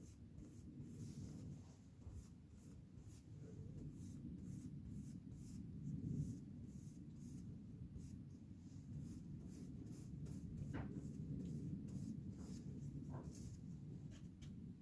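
Paintbrush strokes scratching across the model layout's road surface as matte black paint is brushed on. The short strokes come in quick succession over a low background hum.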